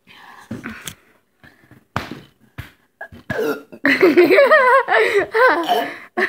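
Vocal noises: a few short rough throat sounds and sharp clicks in the first three seconds, then, from about four seconds in, loud high-pitched laughing whose pitch wavers up and down.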